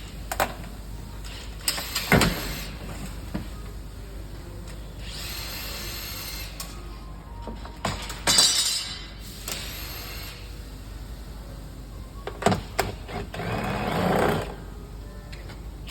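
Tail lamp being taken off a Toyota Prius ZVW30: sharp clicks and knocks of plastic and tools, with three short bursts of a small power tool running, each about a second long.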